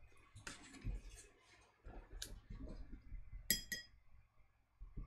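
A paintbrush clinks twice against a glass water jar as the brush is dipped in the rinse water, two light, ringing taps in quick succession about three and a half seconds in.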